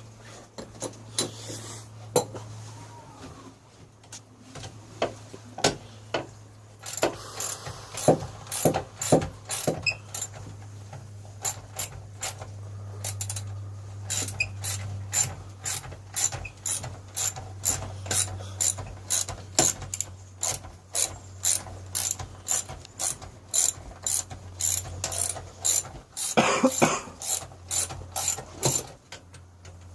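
Hand ratchet wrench clicking in runs of quick strokes, about three clicks a second, over a steady low hum.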